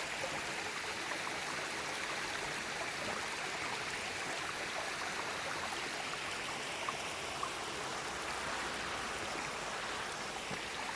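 Steady rushing of a mountain stream's flowing water, with two faint clicks a little past the middle.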